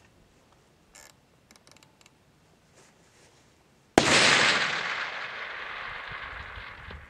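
A single long-range rifle shot about four seconds in, its sharp report trailing off in a long echo that fades over about three seconds. A few faint clicks come before it.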